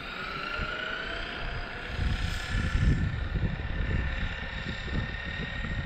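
Traxxas XRT RC truck's brushless motor whining as it drives along the street. The pitch rises over about the first second and a half and then holds steady, over a low rumble.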